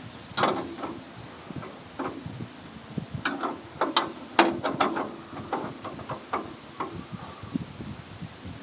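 Irregular clicks and knocks of a wrench working the blade tensioner and tracking adjusters of a portable band sawmill, the sharpest knock about four and a half seconds in.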